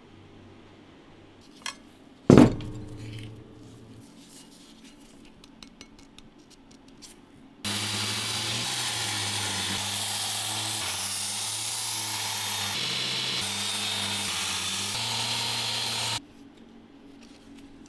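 Angle-grinder-driven belt grinder running while a steel knife blank cut from an old file is ground on its abrasive belt: a loud, steady grinding hiss over the motor hum for about eight seconds, starting and stopping abruptly. Earlier there is one sharp metallic clank with a short ring, and a few light clicks.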